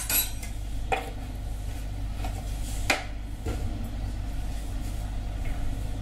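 A few sharp, light clinks and knocks of metal kitchenware, the loudest about three seconds in, over a steady low hum.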